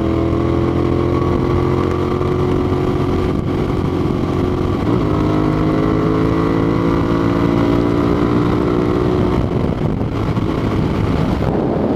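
2008 United Motors V2S 650R motorcycle engine at highway speed, with wind rushing past the helmet. The engine pitch slowly falls, picks up again about halfway through, then eases down once more.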